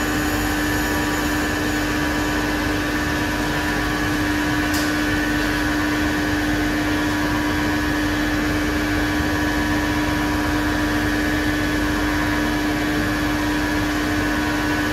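Haas Mondomix UE50 continuous aeration mixer running: a steady machine hum from its motor and pump, with a strong constant low tone and a fainter higher whine, unchanging throughout.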